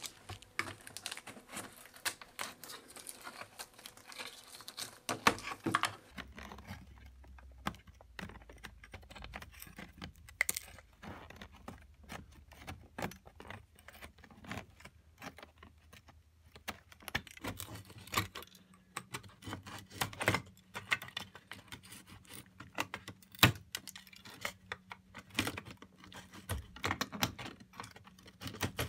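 Old staples being pried out of wooden tambour slats with a flat metal multi-tool blade: an irregular string of small sharp metal clicks and light scrapes, with pulled staples clinking as they are gathered into a tin.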